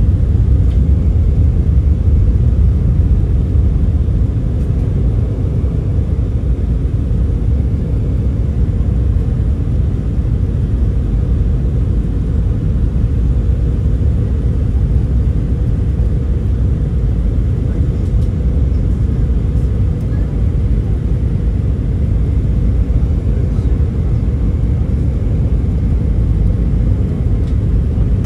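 Steady low rumble of an Airbus A319 in flight, engine and airflow noise heard from inside the passenger cabin.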